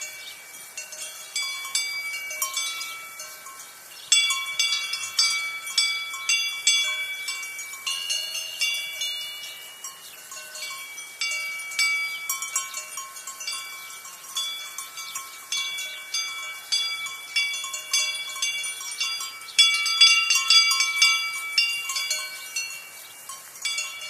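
Several Swiss alpine cowbells on the necks of moving cows clanking irregularly at different pitches, each strike ringing on. The clanking grows busier and louder about four seconds in and again near twenty seconds.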